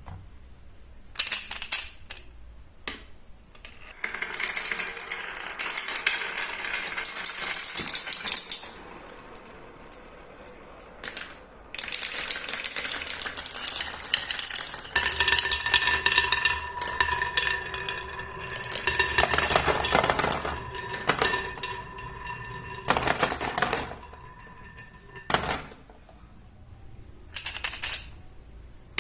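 Marbles rolling and clattering down a wooden marble run, with long rattling runs broken by sharp clicks as they drop and knock together. A steady ringing tone sounds over the rolling for several seconds in the middle.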